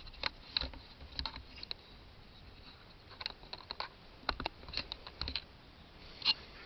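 Scattered small clicks and taps of a camcorder being handled and shaken while an external microphone is plugged back into it.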